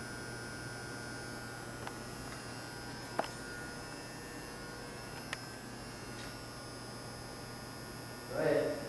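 Steady electrical hum, with a few faint clicks, the sharpest about three seconds in.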